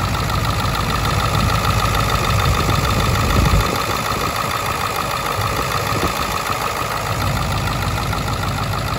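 Ford 7.3-litre Power Stroke turbodiesel V8 idling steadily while it warms up after a cold start. The deep low end of the sound drops away about three and a half seconds in.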